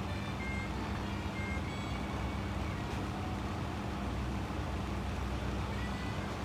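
Steady low background rumble and hum, with a few brief, faint high pings.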